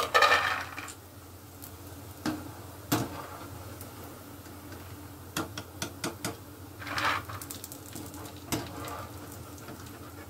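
Oil sizzling in a pan as nimki fry, while a wire-mesh skimmer is swept through the oil to lift them out. The loudest moments are a burst of scraping and sizzling right at the start and another about seven seconds in, with sharp metal clicks of the skimmer against the pan scattered between.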